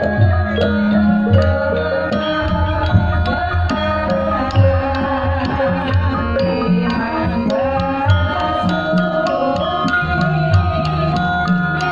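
Javanese gamelan playing: ringing bronze metallophone tones held and overlapping, driven by frequent kendang drum strokes at a steady, loud level.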